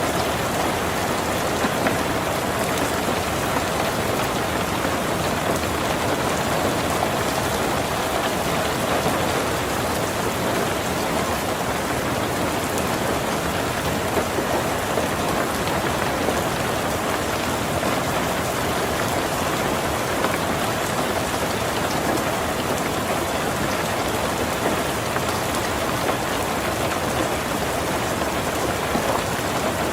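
Heavy rain falling steadily on a tin roof: a dense, even patter with a few slightly louder drops here and there.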